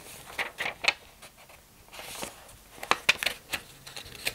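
Pages of a thin paper instruction booklet being leafed through by hand: a run of short paper rustles and flicks, in two clusters with a quieter moment between them.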